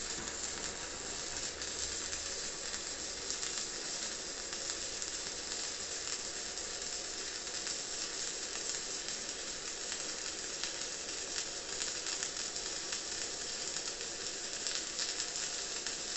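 Stick-welding arc from a 2 mm E6013 electrode at 60 amps on a Daniu MINI MMA-200 inverter welder, burning steadily without a break while laying a horizontal fillet weld.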